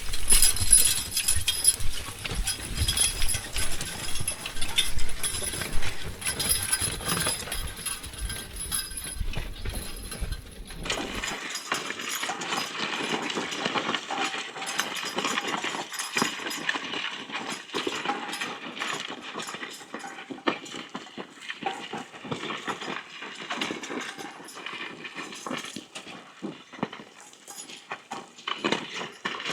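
Percheron draught horse team pulling a plough: many small clicks and knocks of hooves and jingling metal harness, with a low rumble that stops abruptly about eleven seconds in.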